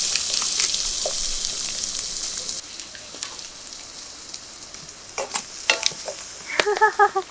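Minced meat and onions sizzling in a frying pan on a gas stove, stirred with a wooden spatula that clicks against the pan. The sizzle is loud at first and drops off sharply about two and a half seconds in, leaving scattered spatula clicks.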